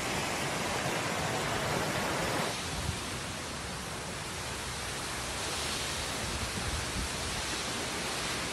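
Steady rushing noise of hurricane wind and heavy rain. About two and a half seconds in the sound shifts, with a low rumble of wind buffeting the microphone from then on.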